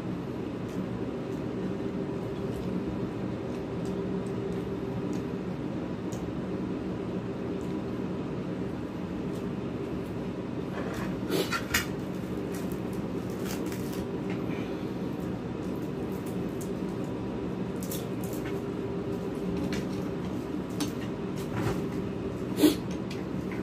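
A steady low hum of a room appliance, with a few light clinks of a metal spoon against a ceramic plate during a meal: two close together about halfway, and a sharper one near the end.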